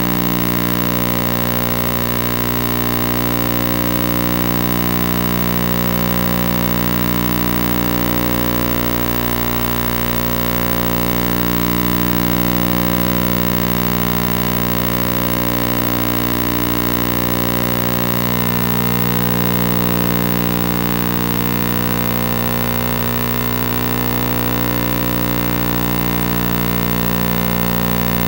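Steady electronic drone of several held pitches, swelling and fading slowly every few seconds.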